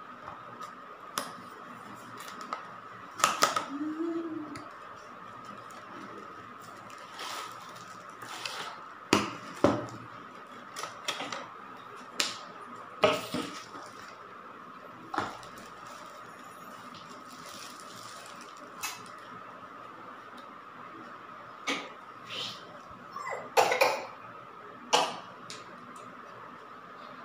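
Handling noise of unboxing a selfie stick tripod: a cardboard box and its paper wrapping rustling, with scattered sharp clicks and knocks of the plastic stick and phone clamp being handled and unfolded, the loudest cluster near the end. A faint steady high whine runs underneath.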